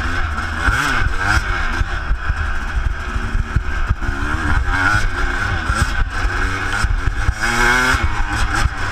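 Suzuki RM250 two-stroke motocross engine revving up and down as the bike is ridden along a dirt track, its pitch rising and falling repeatedly with the throttle.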